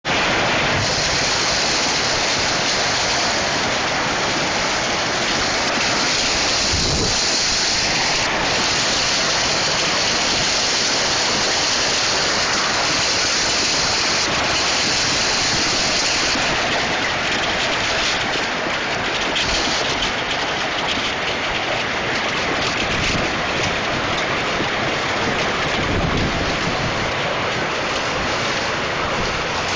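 Hail and heavy rain pelting down in high winds, a loud, steady, dense hiss. From about the middle on, more separate sharp ticks of hailstones striking can be heard, with low rumbles of wind on the microphone.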